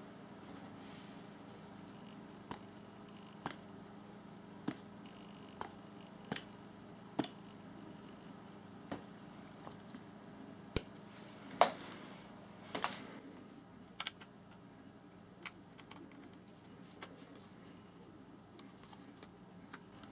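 Sharp plastic clicks and knocks from handling a small battery-powered LED candle: its plastic body is turned over and its base switch and battery compartment are worked. The clicks come singly, about once a second at first, with the loudest cluster around the middle.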